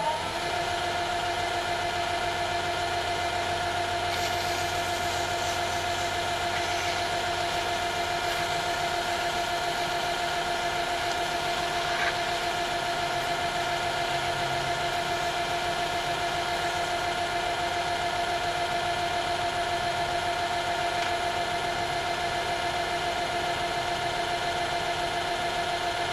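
Metal lathe running steadily at speed with a constant whine, turning the steam-engine piston while it is sanded down with fine paper to fit its cylinder. One small click about twelve seconds in.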